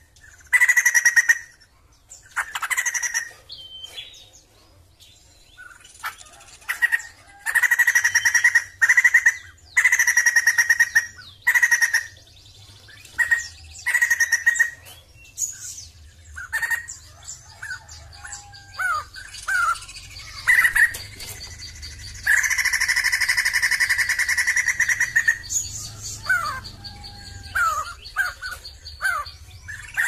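Sumatran laughingthrush (poksay jambul Sumatera) singing: a series of loud ringing calls, each under a second, then a run of quick varied whistled notes, with one long drawn-out call of about three seconds past the middle.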